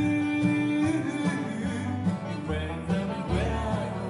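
Bluegrass band playing live: banjo, acoustic guitar, mandolin and upright bass, with a long held note in the first second.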